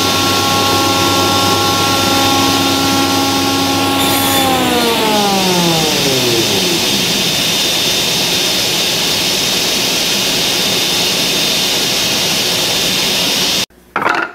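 Spindle shaper running with its glue joint cutterhead spinning, then switched off about four seconds in; its hum falls steadily in pitch over about three seconds as the spindle coasts down. A steady rushing noise carries on and cuts off abruptly near the end.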